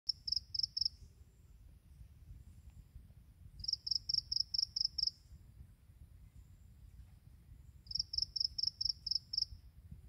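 A grass insect singing: three bursts of rapid, evenly spaced high chirps, about five a second and four to seven per burst, a few seconds apart, over a faint low rumble.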